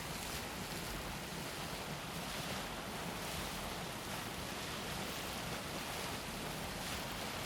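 Deildartunguhver hot springs: boiling water bubbling and hissing in a steady, even wash of noise with a low rumble underneath.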